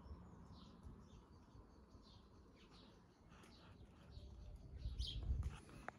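Faint birds chirping in short scattered calls, with a low rumble about four to five seconds in.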